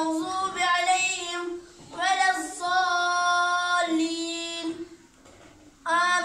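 A child chanting a Quran recitation (qira'at) in Arabic in long, melodious phrases with held notes. There is a short pause near the end before the next phrase begins.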